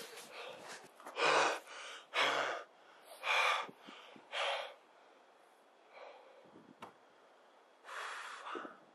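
A person breathing hard, in gasps about once a second, easing off after about five seconds, with one more breath near the end.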